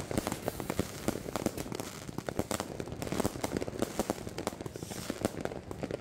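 Fireworks going off: a dense run of crackles and pops, many small bangs a second.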